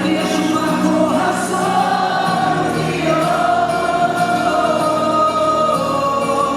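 Live pop song performance: band accompaniment with sung voices holding long, gliding notes.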